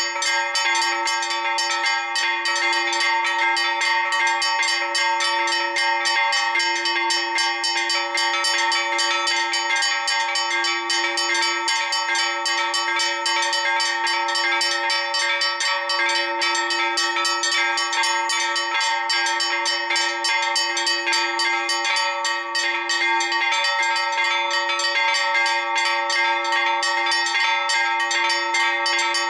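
Four bronze church bells rung together in a festive Maltese peal, struck rapidly and without pause so their tones overlap in continuous ringing: the call to High Mass on a feast day.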